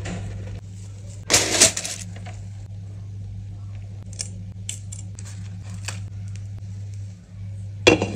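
Metal and glass cookware clattering: a loud clatter just over a second in and another at the very end, with a few light metallic clicks in between, over a steady low hum.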